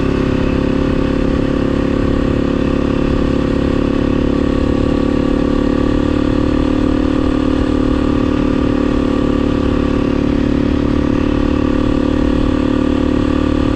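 2016 Beta 500 RS supermoto's single-cylinder four-stroke engine running at a steady cruise while riding, its pitch holding nearly level.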